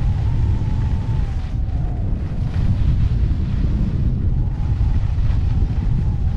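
Wind buffeting an action camera's microphone as a skier runs fast downhill at about 55–60 km/h: a loud, steady rumble, with skis hissing over the snow and a faint wavering whistle in the first couple of seconds.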